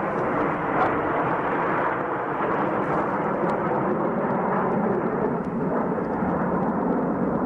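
Steady rushing jet noise from a formation of CT-114 Tutor jets flying overhead, each powered by a single turbojet.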